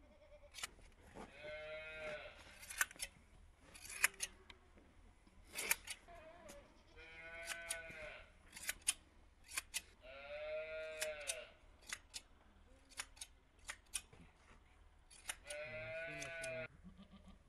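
A goat bleating four times, each call about a second and a half long, while it is clipped with hand shears. The shear blades snip sharply many times between the calls.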